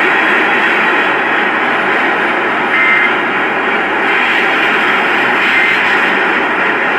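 Steady hiss of radio static on the broadcast feed, with two short faint high blips, about three and five and a half seconds in.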